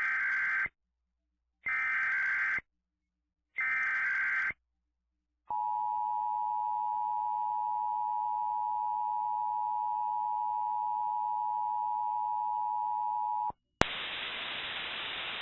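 Emergency Alert System SAME header: three short bursts of data tones, each about a second long with a second's gap, followed by the EAS attention signal, a steady two-tone beep held about eight seconds, announcing an alert broadcast. It cuts off, then a click and a steady hiss of static.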